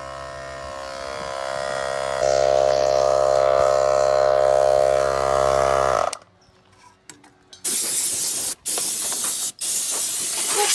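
A steady mechanical hum that grows louder about two seconds in and cuts off abruptly after about six seconds. A loud, even hiss starts soon after and breaks off twice for an instant.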